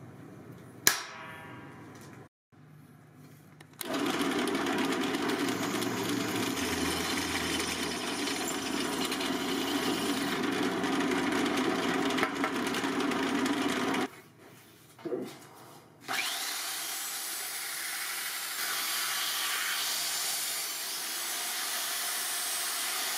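A single hammer blow on a center punch rings off the metal about a second in. From about 4 s to 14 s a drill press drills a hole through the metal piece. After a short break, a handheld cordless power tool runs steadily from about 16 s as it works on a metal pipe.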